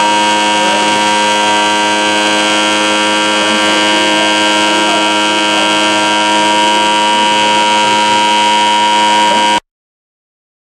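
A gong being rolled: a loud, sustained ring of many steady, unevenly pitched tones with one clear tone standing out, which cuts off abruptly near the end.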